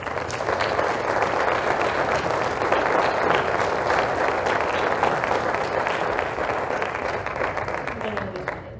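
Audience applauding. The clapping is steady and then dies away near the end.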